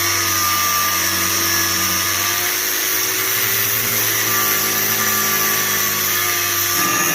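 Power cutting tool running under load, cutting through a steel 6202 ball bearing: a loud, steady high whine with hiss, its pitch wavering slightly as it bites.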